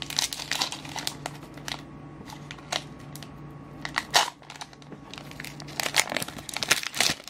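Foil wrapper of a Pokémon Guardians Rising booster pack crinkling as it is torn open by hand: a series of irregular crackles, loudest about four seconds in and again near the end.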